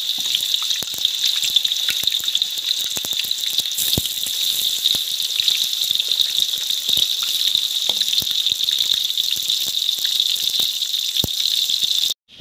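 Pieces of tofu sizzling as they fry in hot oil, a steady hiss with constant crackling and popping. It cuts off suddenly near the end.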